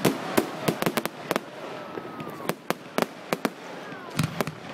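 Fireworks bursting overhead: an irregular run of sharp cracks and bangs, several a second, from exploding shells and crackling stars. A heavier, deeper boom comes a little past four seconds.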